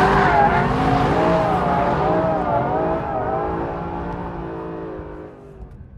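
Mercedes SLS AMG Black Series's 6.2-litre V8 revving up and down through a drift, with tyre noise near the start. The sound fades steadily as the car moves away.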